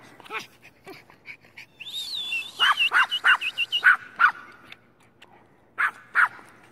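A dog whining and yipping in short, high, arching cries, a few scattered at first, then a quick run of them in the middle and two more near the end.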